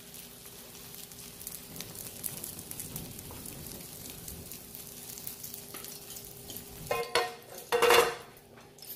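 Bangajeon, a Korean mint and dried-shrimp pancake, sizzling in olive oil in a non-stick frying pan: a steady crackling hiss. Near the end there are a few loud clatters as the metal spatula scrapes and knocks on the pan while the pancake is lifted out.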